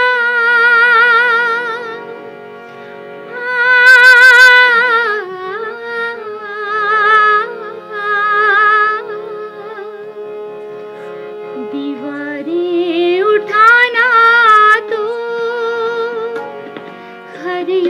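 Woman singing a ghazal to harmonium accompaniment: several sung phrases of long, wavering held notes, with the harmonium's sustained chords carrying on underneath and in the gaps between them.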